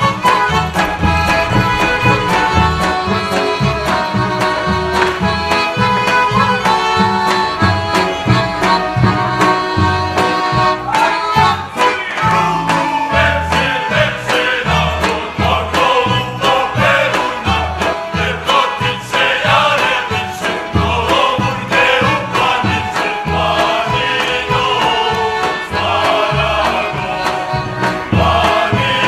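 Serbian folk band led by accordion playing a dance tune over a steady pulsing bass beat; about twelve seconds in, a group of men starts singing together over the band.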